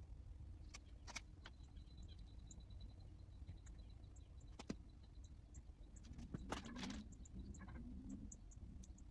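Near silence with a low hum, broken by a few faint clicks and a short cluster of small knocks about two thirds of the way in, as of engine parts or tools being handled.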